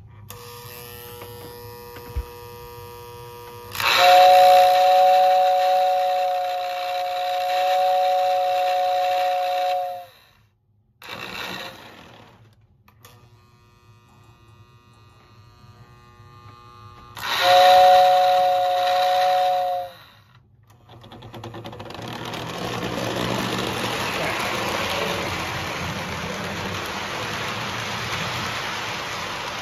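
Lionel 681 turbine O-gauge model locomotive's whistle sounding a long, steady chord a few seconds in and a shorter one after about 17 seconds. From about 21 seconds on comes the steady rolling noise of the train running on the track.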